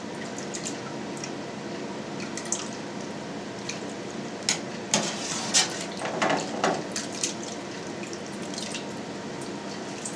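Whey trickling and dripping from freshly ladled cheese curds through a cheesecloth-lined colander into a stainless steel pan. Between about four and seven seconds in, a few short splashes and knocks come as a wooden spoon scoops more curds out of the whey in the vat.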